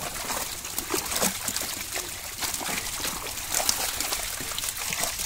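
Water splashing and trickling as a netful of live fish thrashes in shallow water while they are scooped out by hand. It comes as many small, irregular splashes.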